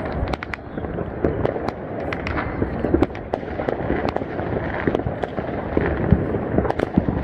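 New Year's Eve fireworks going off continuously: many sharp cracks and pops at irregular intervals over a dense crackling rumble of bursts.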